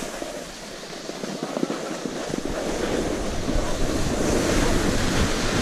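Snowboards sliding downhill over packed snow, a steady scraping hiss, with wind rumbling on the microphone. The rumble lulls for the first two seconds, then comes back, getting louder toward the end.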